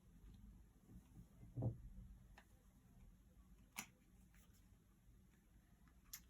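Near silence with faint handling sounds of tarot cards: a soft low thump a little under two seconds in, then a few light clicks as cards are laid down on a table.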